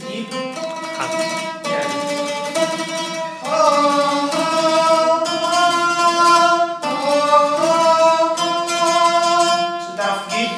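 A man singing long held notes to his own oud accompaniment, each new note starting with a pluck of the strings. The pitch moves in steps from note to note, with one slide up about a third of the way through and a short break near the middle.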